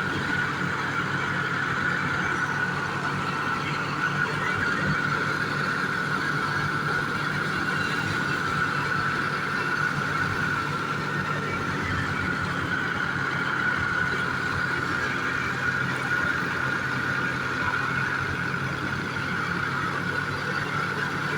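Tractor-powered wheat thresher running at a steady speed: a constant engine hum with a steady high whine over it.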